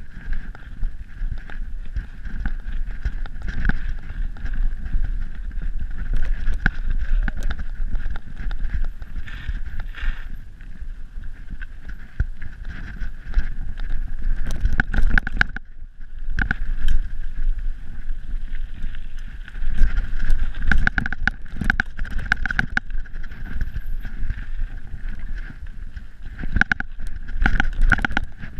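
Full-suspension mountain bike riding fast downhill over dirt and roots: tyres rumbling, with a steady high whirr, wind buffeting the microphone, and the bike clattering and rattling over bumps, hardest in flurries in the middle and near the end.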